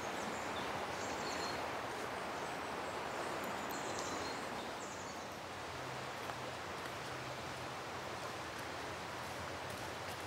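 Steady rushing of river water, with a few short, faint, high bird chirps in the first half.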